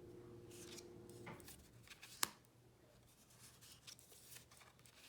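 Faint handling of tarot cards: soft slides and light taps as cards are flipped over, with one sharper click about two seconds in. A faint steady hum stops about a second in.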